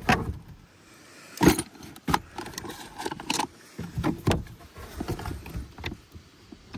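Scattered metallic clicks, clanks and rattles of tools and parts being handled while working on an ATV, with the sharpest knock about one and a half seconds in.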